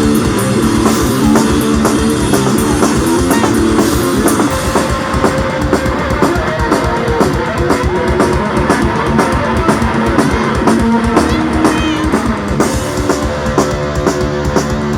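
Live rock music, instrumental with no singing: an electric guitar riff over a driving drum-kit beat.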